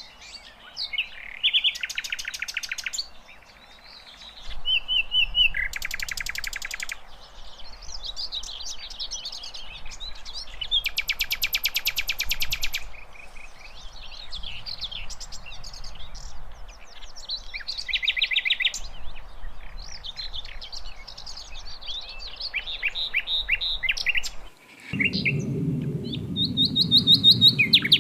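Sikatan londo flycatcher singing vigorously: a varied run of chirps and short whistled notes broken by several fast, buzzy rattling trills. Near the end a low rumble sits under the song for a few seconds.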